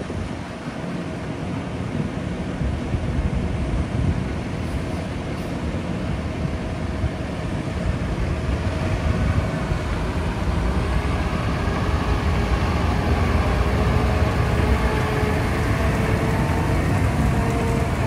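Diesel engine of a concrete mixer truck pulling away and driving past, a low rumble that grows steadily louder as it approaches.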